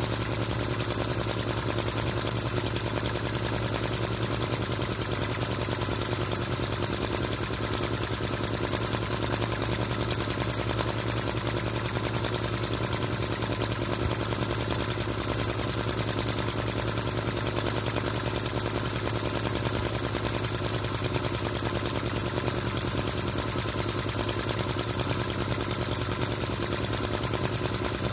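Model V-twin flame-licker (vacuum) engine running steadily, with a rapid, even popping that its spring-loaded valves make as they draw the flames into the cylinders.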